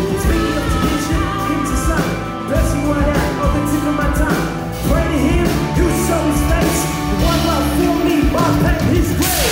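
A singer performing live into a microphone over loud amplified backing music with a heavy, steady bass.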